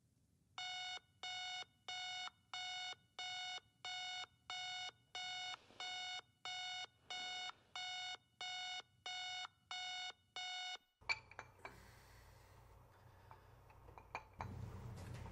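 Digital bedside alarm clock beeping: a steady run of about fifteen identical electronic beeps, roughly one every 0.7 s, that stops about eleven seconds in. A sharp click comes just after it stops, followed by faint clicks and rustling and a low hum that grows near the end.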